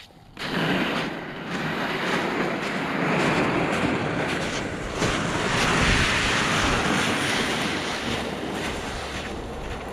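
Loaded plastic Jet Sled dragged over pond ice: a steady scraping hiss that starts suddenly about half a second in.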